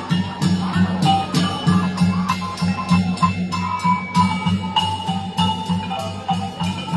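Sabah traditional gong music: a kulintangan, a row of small tuned gongs, plays a repeating melody over a steady pulsing beat from larger gongs, with bright metallic strokes.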